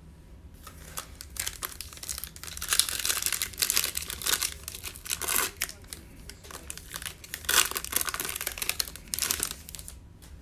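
Foil wrapper of a Bowman Chrome baseball card pack crinkling and tearing as it is opened by hand, with a louder stretch of rustling in the first half and another near the end.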